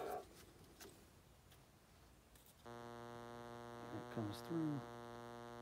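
A steady electrical hum, a low buzz with many overtones, that switches on abruptly about two and a half seconds in and holds at a constant level; before it, near quiet.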